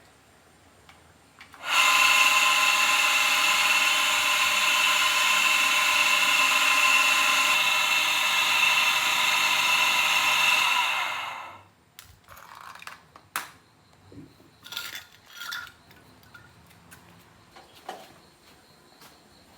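Electric power tool running at steady speed for about nine seconds, then switched off and winding down with a falling pitch. A few light clicks and knocks of handling follow.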